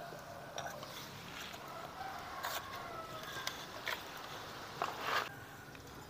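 Scattered light clicks and knocks of hands fitting the final-drive gear cover back onto a Honda Vario's CVT case.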